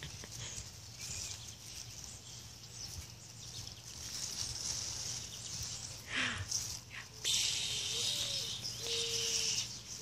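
Leaves rustling as baby raccoons grab and tug at a leafy twig, with small scrabbling and scraping sounds as they climb on the tree; a couple of short scrapes just after six seconds in and louder rustling from about seven seconds. A low hooting note repeats near the end.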